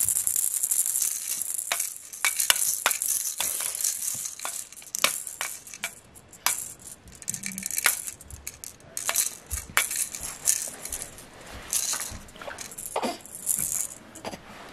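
A baby's plastic bead-filled rattle being shaken unevenly by an infant, giving irregular bursts of rattling and sharp clicks.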